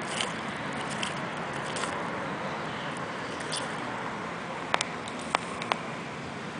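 Sulcata tortoise chewing corn on the cob, with small crunches and a cluster of about four sharp cracks late on as the cob and kernels break in its jaws, over a steady hiss.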